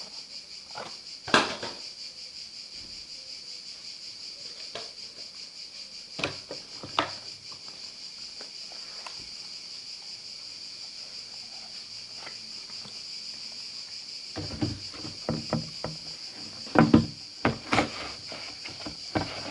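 Scattered clicks, taps and knocks from handling a smartphone and its box and packaging, over a steady high-pitched drone. The handling grows busier near the end.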